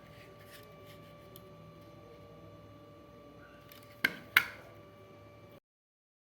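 Two sharp clicks about a third of a second apart, over light handling rustle and a steady faint hum; the sound cuts off about a second later.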